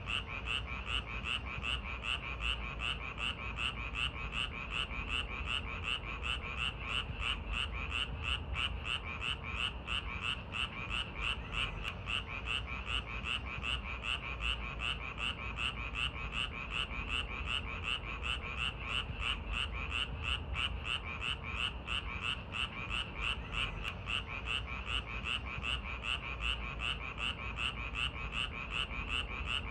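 A chorus of frogs croaking in a steady rhythm of about three calls a second, keeping on without a break.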